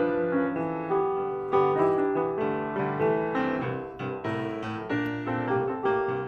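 Solo piano music, notes struck one after another at a moderate pace.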